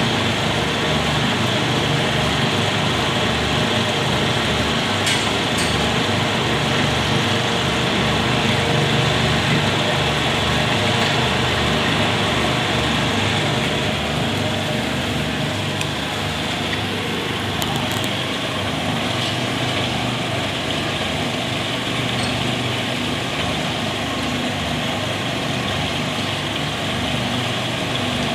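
Screw-press dewatering machine running steadily as it squeezes cattle-manure slurry and pushes out damp solids: a steady mechanical drone with a low pulsing hum.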